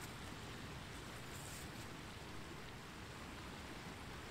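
Faint, steady background noise with a low, fluttering rumble, and a brief soft high rustle about a second and a half in.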